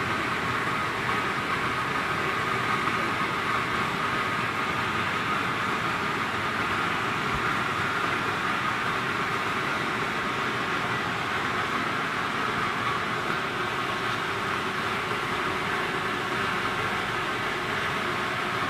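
Industrial boiler running: a constant rushing machinery noise with a faint steady whine, unchanging throughout.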